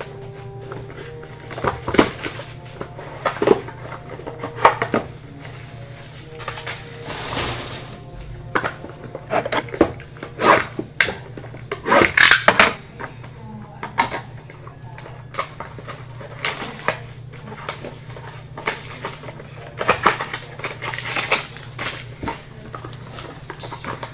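A box of Topps Triple Threads baseball cards being opened and its packaging handled: irregular clicks, clatters and crinkling rustles, heaviest in a few clusters, over a steady low hum.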